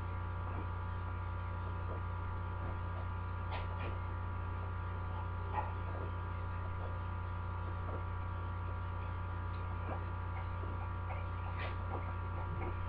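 Steady low electric hum with a few faint ticks scattered through it.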